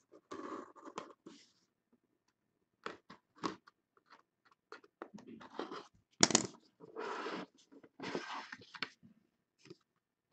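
A cardboard trading-card box being slit open with a box cutter and its lid pulled off: stop-start scraping and rustling of blade and cardboard, with a sharp click about six seconds in.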